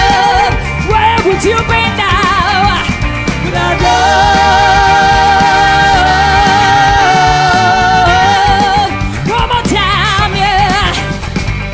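Live band music: drums, bass, electric guitar and keyboards behind a trumpet and saxophone horn section, with singing and long held notes with vibrato.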